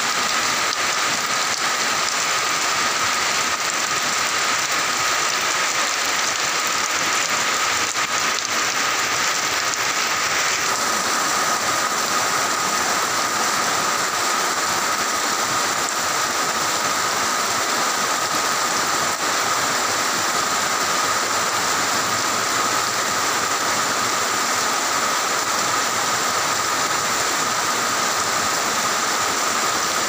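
Heavy rain pouring down and pattering on paving, leaves and puddled ground: a dense, steady hiss with a thin, steady high tone in it.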